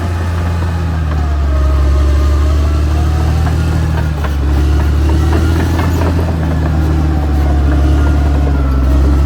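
Caterpillar D6R XL bulldozer's diesel engine running steadily under load, with a wavering whine above it and a few sharp knocks.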